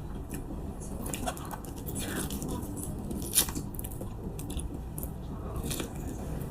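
Soft, scattered wet clicks and squishes of Monthong durian flesh being pulled apart and bitten, with one sharper click about three and a half seconds in.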